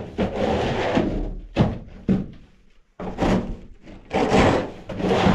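Scraping and knocking on wooden granary boards while dusty, caked old feed and chicken manure are cleared out: a series of rough, noisy strokes with a couple of sharp knocks in the middle.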